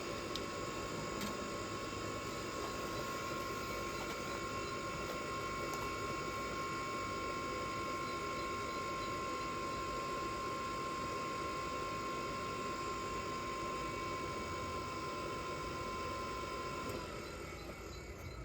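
Chinese diesel air heater's blower fan running with a steady whine. About a second before the end it winds down, the pitch falling, as the heater shuts itself down.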